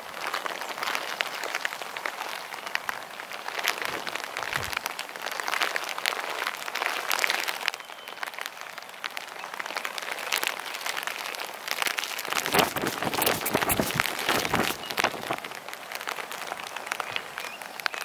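Drizzle pattering in a dense, fine crackle with steady wind noise. Gusts rumble on the microphone about two-thirds of the way through.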